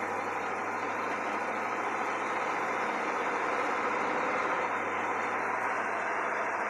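1968 Chevrolet Camaro driving at a steady pace: a steady mix of engine and road noise heard from inside the cabin.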